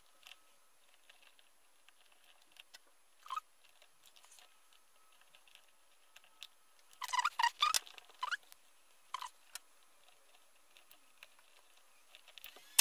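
Sparse small clicks and light scrapes of needle-nose pliers and fingers working a thin steel cable through the plastic guides of a boot's BOA lacing mechanism, with a quick run of clicks about seven seconds in.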